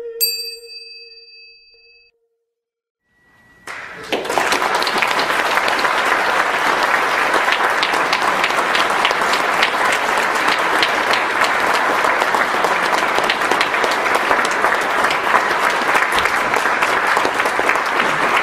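The last struck note of the music rings and fades, then after a moment of silence an audience bursts into steady applause that fills the hall.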